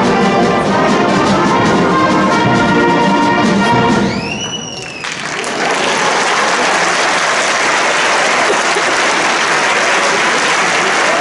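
School concert band with brass holding a loud sustained chord that stops about four seconds in. A single whistled note follows, bending up and then slowly down, and then an audience breaks into steady applause.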